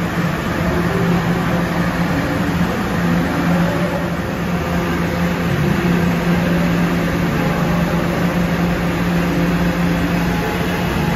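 Kawasaki R211 subway car at the platform, giving off a steady low electrical hum over a constant rumble of station noise.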